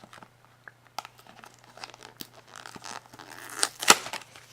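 Cereal box packaging being opened by hand: cardboard and packaging tearing and crinkling in scattered rustles and clicks, with one sharp rip a little before the end.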